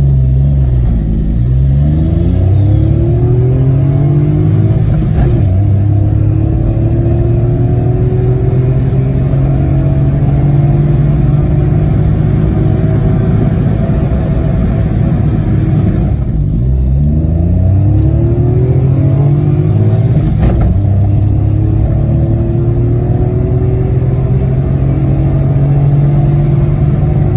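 Citroen C1's remapped 1.0-litre three-cylinder petrol engine accelerating hard from a standstill through the gears in a 0-60 mph run, heard from inside the cabin, its pitch climbing. A second run starts from low revs about 16 seconds in.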